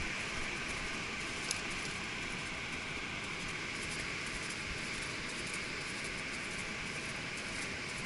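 Steady wind rush on a horseback rider's camera microphone, with a low buffeting rumble and one small click about a second and a half in.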